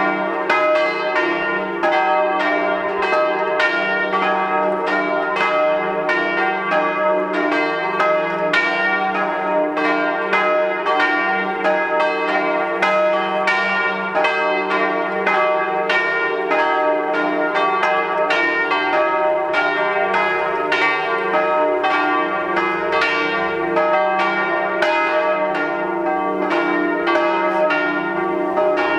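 Swinging church bells from a five-bell ring tuned diatonically in E-flat, several bells striking over one another in a continuous peal, strike after strike with no pause.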